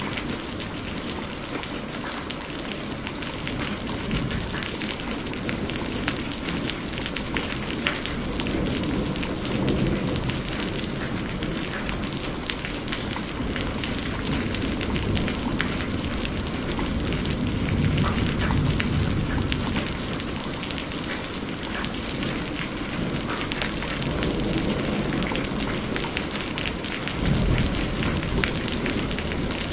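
Rain falling steadily, with many individual drop hits heard sharply through it. Low thunder rumbles up and fades away three times.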